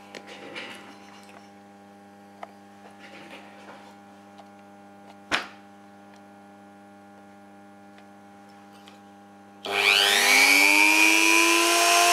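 A faint steady hum with a couple of small clicks, then about three quarters of the way in a Dremel rotary tool switches on, its whine rising in pitch as it spins up to speed and running on steadily on the homemade drill press.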